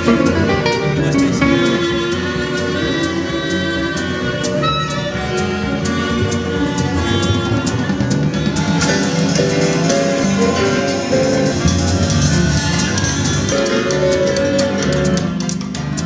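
A small band playing an instrumental piece: double bass and electric guitar over drums keeping a steady beat, with sustained melody notes above.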